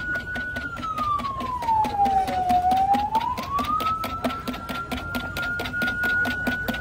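A vehicle siren wailing slowly: one tone holds high, falls over a couple of seconds, climbs back and holds high again. Under it, quick even clicking from a spoon stirring juice in a plastic jug.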